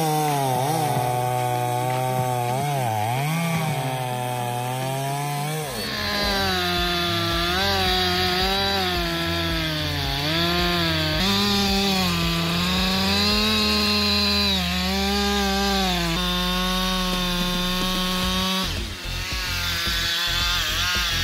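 Chainsaw running under load in a cut, its engine pitch wavering up and down as it bogs and recovers. The note jumps higher about six seconds in.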